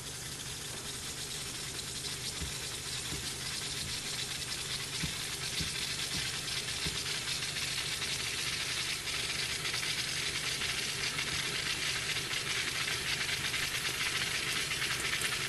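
Steam hissing through a small model steam engine fed from an electric steam cleaner, growing steadily louder as the brass supply valve is opened, with a few faint clicks before the engine starts to run.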